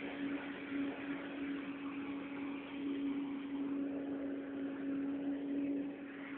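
Tornado Revolution coffee harvester running steadily: a constant hum over a dense, even rushing noise.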